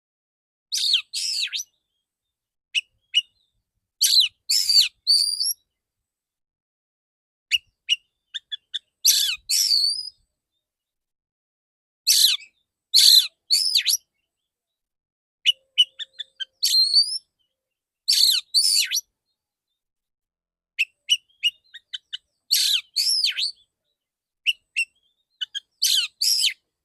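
Male oriental magpie-robin singing in short bursts of sharp, high whistled notes and quick rising and falling chatter, a burst every second or two with silence between. These are the loud, clear 'dor dor' shot-like calls that bird keepers play as training audio.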